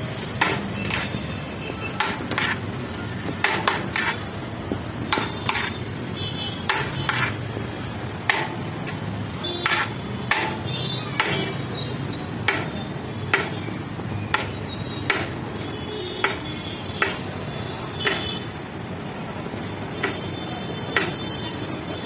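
A ladle clanking and scraping against a large metal cooking pot as biryani is scooped out: irregular sharp knocks, about one or two a second, some with a short metallic ring, over steady background noise.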